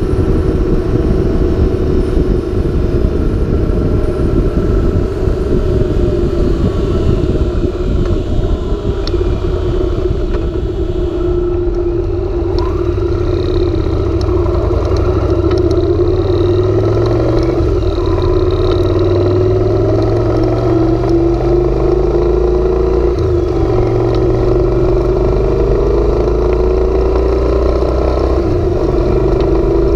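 Yamaha BT1100 Bulldog's air-cooled V-twin running through aftermarket LASER Duo-Tech titanium silencers while the bike is ridden on the road. Its pitch sags about a third of the way in, then climbs and falls again as the throttle and speed change, over a heavy low rumble of wind on the microphone.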